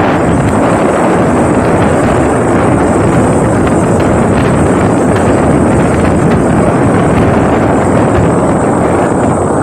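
Motorboat under way: the engine and the hull's rush through the water make a loud, steady noise, with wind buffeting the microphone.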